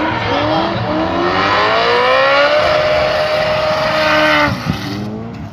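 Drift cars' engines held at high revs through a tandem drift, over the noise of tyres spinning in smoke. The engine note climbs in pitch over the first couple of seconds, holds high, then drops off about four and a half seconds in as the driver lifts.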